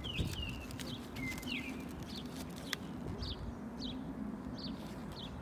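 A horse walking on soft dirt arena footing, its hoofbeats low and soft, while a small bird repeats short chirped notes about twice a second.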